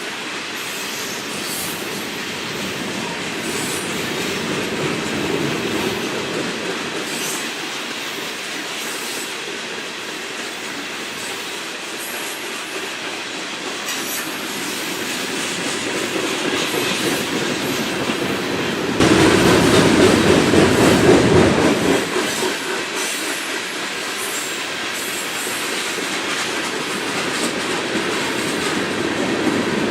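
CSX freight train cars rolling past, their wheels clicking over the rail joints in a steady stream. The sound swells louder for a few seconds about two-thirds of the way through.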